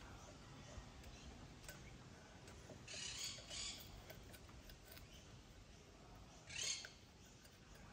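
Faint handling noises as a compression tester's hose is screwed into a spark plug hole: light metal ticks and three brief scraping rustles, two close together about three seconds in and one about six and a half seconds in.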